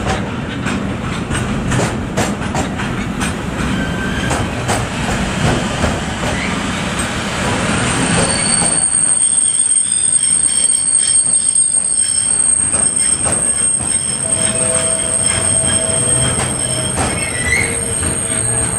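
Long intermodal freight train carrying semi-trailers rolling past: a steady rumble and clatter of wheels on the rails. About halfway through, high-pitched wheel squeal sets in and holds, with several thin tones over the clatter.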